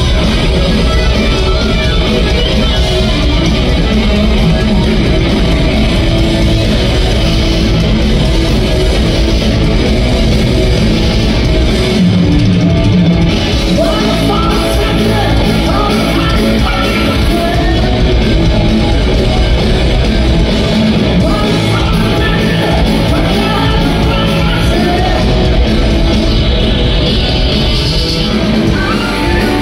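Live hard rock trio playing: electric guitar, electric bass and drum kit at full volume, heard from the audience in a large hall. A male lead vocal comes in about halfway through.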